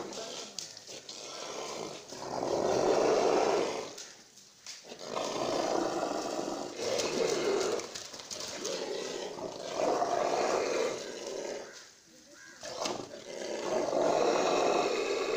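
Dhani bull, down during its Qurbani slaughter, giving long, rasping, roaring breaths one after another every two to three seconds.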